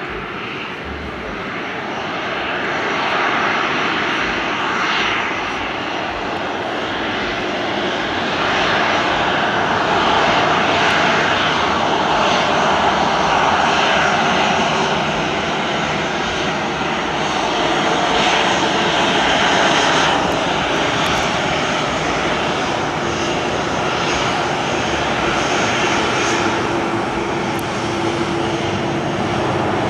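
A Boeing 737-800's twin CFM56 jet engines run at low taxi power as the airliner rolls along the runway. The rushing engine noise is steady and swells a little about a third of the way in.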